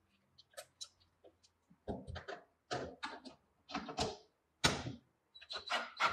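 Cordless drill driving a bolt home in a run of short bursts, with small metallic clicks from the tools between them; the bursts get louder near the end.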